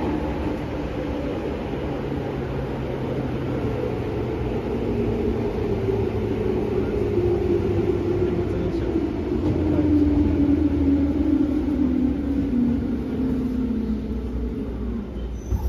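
Running sound inside a JR 205 series 3100 electric train car with field-added excitation control: the rumble of the car on the track, under a traction motor and gear whine that falls steadily in pitch over the second half as the train slows for a station stop.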